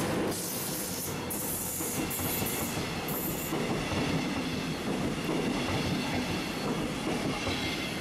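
Electric passenger train, a CFL locomotive hauling double-deck coaches, rolling past close by: a steady rumble and wheel noise on the rails, dipping slightly near the end as the last coach clears.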